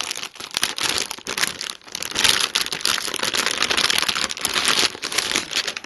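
Plastic packaging crinkling and crackling as a graphics card is unwrapped and handled, a dense run of small crackles that stops near the end.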